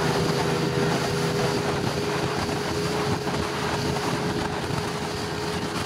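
Motorboat running at speed: a steady engine drone at constant pitch under a rush of wind on the microphone and water noise.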